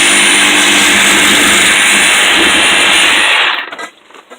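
Electric power tool motor running at full speed with a steady high whine, then switched off about three and a half seconds in, its whine dropping as it winds down.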